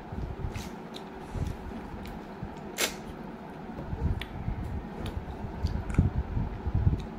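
Close-up eating sounds of a person eating snail curry and rice by hand: wet chewing and mouth smacking with scattered sharp clicks, getting busier about halfway through.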